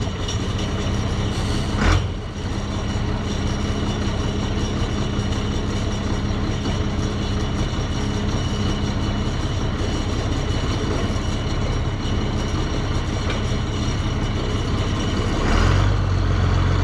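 A heavy vehicle engine running steadily with a constant hum. There is a sharp knock about two seconds in, and the engine note gets deeper and louder near the end.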